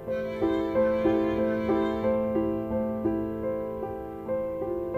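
Instrumental music: an even figure of struck notes, about three a second, each ringing and then fading.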